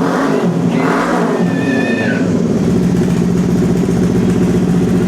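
Kawasaki Ninja 500's parallel-twin engine running through a freshly fitted iStunt slip-on exhaust with its dB killer in, still pretty loud. The revs rise and fall in the first couple of seconds, then it settles to a steady idle.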